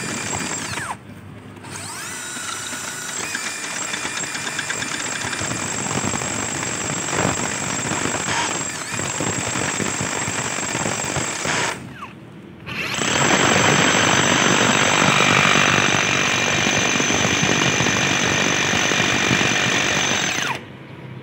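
Makita HR005G 40Vmax XGT brushless cordless rotary hammer hammer-drilling into stone wall cladding with a large masonry bit. It stops briefly about a second in and again about twelve seconds in, runs louder with a steady whine after the second restart, and cuts off just before the end.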